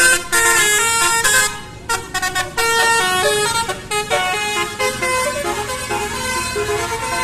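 Basuri telolet horn on a bus, its set of horns playing a quick tune of stepped notes with short breaks between phrases; the notes grow fainter in the second half.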